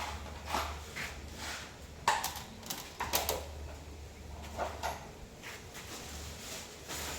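A series of irregular knocks, clicks and rattles, the sharpest about two and three seconds in.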